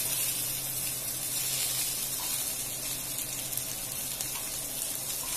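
Fish steaks shallow-frying on low heat in a few tablespoons of oil on a flat dosa pan, giving a steady frying sizzle.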